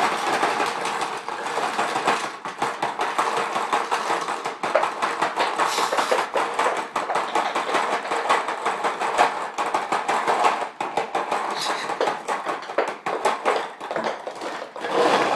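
Paintballs rattling and clattering steadily inside a Dye Rotor paintball loader, a dense stream of many small hard clicks.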